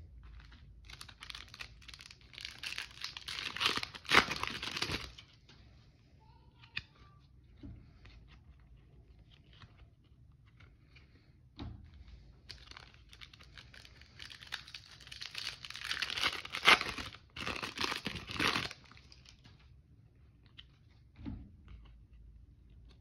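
Foil trading-card pack wrappers being torn open and crinkled, in two bouts of several seconds each, with a few light knocks in between.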